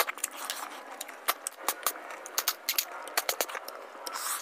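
Close-miked mouth sounds of a person eating freshwater snails in curry by hand: irregular wet smacks, sucks and sharp clicks of chewing, several a second, with a short slurping hiss near the end.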